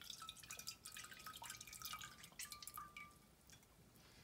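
Tamarind water dripping and trickling from a glass bowl into a stainless steel saucepan: faint little splashes and droplet pings that die away about three seconds in.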